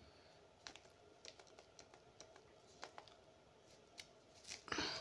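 Faint, irregular clicks and taps, about a dozen scattered through, from fingers working a device while the next comment is looked up. A brief, louder rustle comes near the end.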